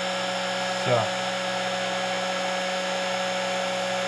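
Hot air gun running steadily: a constant blowing whir with a steady electric hum.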